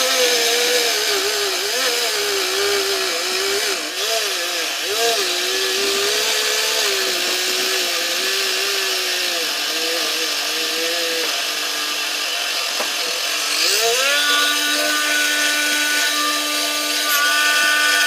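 A homemade saw driven by a small DC motor, cutting. Its whine sags and wavers in pitch under load, then rises about 14 seconds in to a steady, higher whine as the blade runs free.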